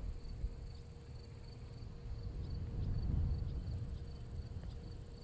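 Faint low drone of a distant Cessna 150F's four-cylinder Continental O-200 engine on final approach, swelling a little about three seconds in. Steady high insect trilling runs under it.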